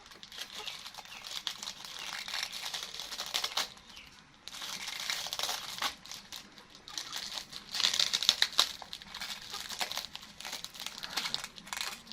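Plastic wrapper of a rice cake crinkling and rustling in irregular bursts as a pet monkey picks at it to peel it open, loudest about eight seconds in.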